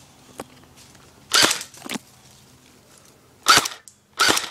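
Airsoft rifle firing single shots: four sharp cracks at uneven spacing, the first about a second and a half in.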